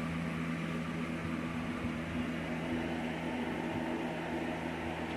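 Steady mechanical hum with several even tones, with a few faint, scattered clicks from two puppies eating raw food out of a pan.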